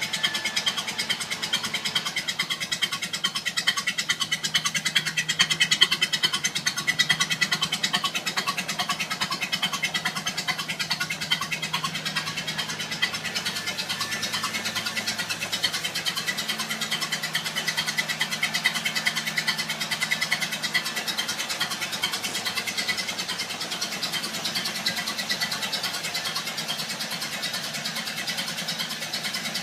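Old car engine running steadily at idle, a fast, even chugging pulse with no change in speed.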